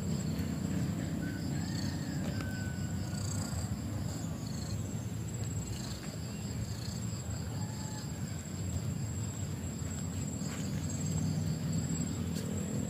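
Insects trilling in a garden: one steady high-pitched trill runs throughout, with a second insect pulsing quickly and evenly beneath it. A constant low rumble sits under them, and a faint falling whistle comes about two seconds in.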